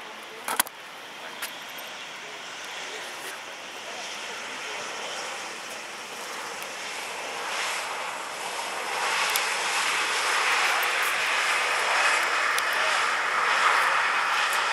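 Boeing 737-800's CFM56 jet engines on the landing rollout, a broad rushing jet noise that grows much louder from about eight seconds in, as with reverse thrust being applied. A couple of sharp knocks near the start.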